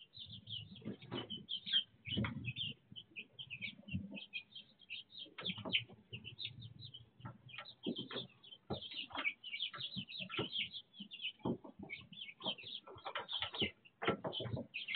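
A brooder full of young chicks peeping constantly in many overlapping high, short chirps. Frequent brief scratching and rustling sounds come from the chicks moving in the wood-shavings bedding.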